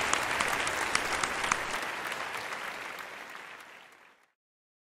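Audience applauding, fading out and cutting off to silence about four seconds in.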